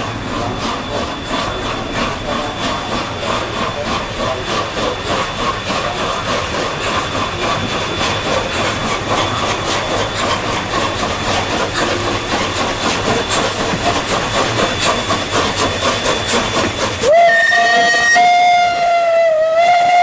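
ČSD class 498.1 'Albatros' steam locomotive getting under way: a steady hiss of steam with a fast beat of exhaust chuffs. About seventeen seconds in, the steam whistle sounds a long, loud blast of several notes at once, sagging briefly in pitch before steadying.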